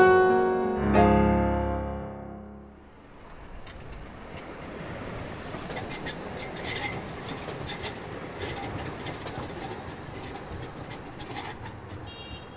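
Soft piano music fades out in the first couple of seconds. Then comes the steady running noise of a passing light-rail tram on its tracks, with scattered short high scraping sounds.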